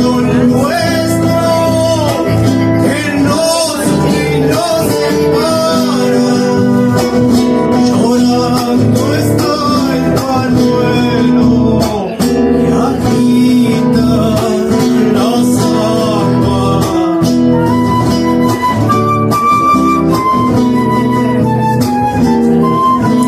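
Live Argentine folk music from a trio of guitars, bombo drum and transverse flute, with singing. Held flute-like notes carry the melody in the last few seconds.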